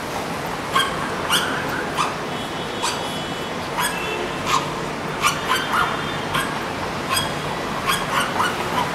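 A dog barking repeatedly in short, sharp barks, roughly once or twice a second, with a few drawn-out higher whining notes in the middle, over a steady background hum.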